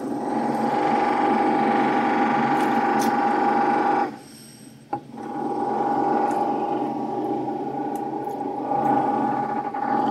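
Electric power tool from a house renovation running with a steady high whine: about four seconds, a break of about a second with a single sharp knock, then about five seconds more.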